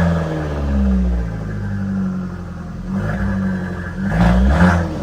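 Fiat 500 engine revved twice, near the start and again about four seconds in, falling back toward idle between. The throttle now answers the pedal through the newly wired throttle body connector.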